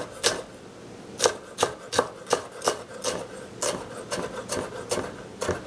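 Chef's knife chopping small bell pepper strips on a wooden cutting board: an uneven run of sharp knocks as the blade hits the board, two to three a second.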